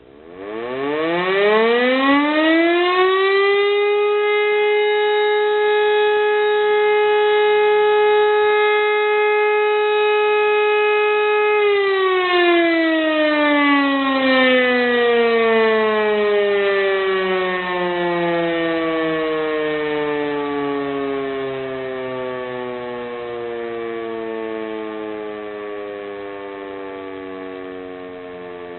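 E57 electromechanical civil-defence siren starting up: its pitch rises to one steady tone within about three seconds, holds for several seconds, then falls slowly and fades as the rotor runs down. This is the 'Probe' test signal, a single steady tone about twelve seconds long.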